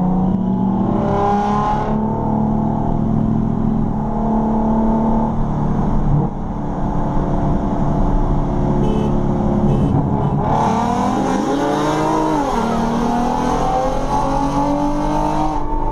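Engines of a Genesis 3.8 and a supercharged Ford Lightning pickup at full throttle in a street race, the engine note climbing through the revs and dropping at gear changes. A loud hiss starts suddenly about ten seconds in and stops shortly before the end.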